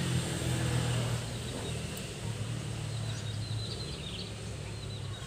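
Outdoor background: a low steady rumble, a little louder in the first second, with a few faint bird chirps about three seconds in.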